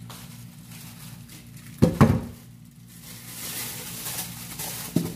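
Metal pans and basins knocked together at a kitchen sink: two loud clanks about two seconds in and another near the end, with a steady hiss from about three seconds on.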